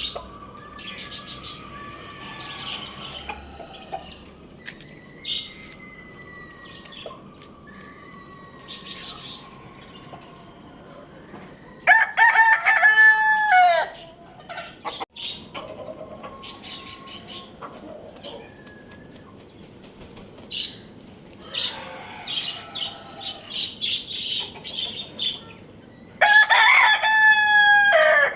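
Rooster crowing twice, each crow about two seconds long, about twelve seconds in and again near the end, with shorter, fainter bird calls and chirps in between.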